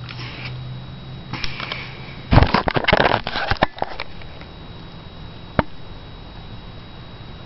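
Knocking, rattling and rustling of a handheld camera being picked up and moved, loudest in a burst of handling about two to four seconds in, then a single sharp click near six seconds.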